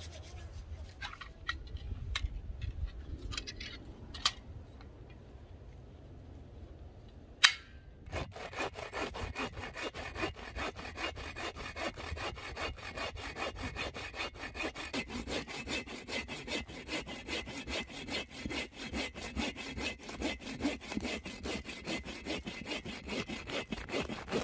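AGAWA Boreal21 folding bow saw cutting through a dead log with steady back-and-forth strokes, starting about a third of the way in. Before it come a few scattered clicks and one sharp click.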